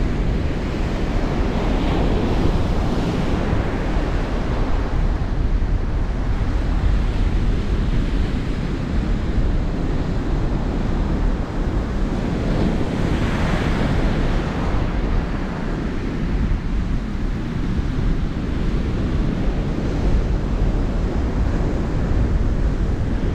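Ocean surf washing onto a beach, with wind buffeting the microphone; the wash swells louder twice, a couple of seconds in and about halfway through.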